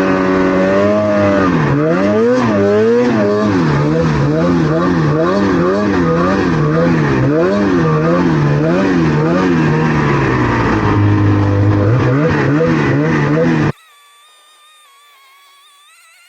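Snowmobile engine running at speed, its pitch swinging up and down about one and a half times a second as the throttle is worked, with a brief lower stretch near the end. It cuts off abruptly, leaving only a faint wavering tone.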